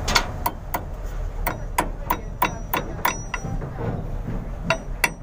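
Hand hammer striking steel at a truck's differential pinion nut in quick, ringing metallic taps, about three a second, pausing briefly past the middle and resuming near the end: a nail fitted through the nut in place of a cotter pin is being bent over to lock it.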